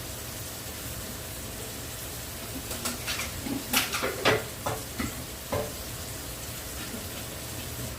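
Chicken pieces sizzling as they brown in a pot. About halfway through, a utensil knocks and scrapes against the pan several times, stirring.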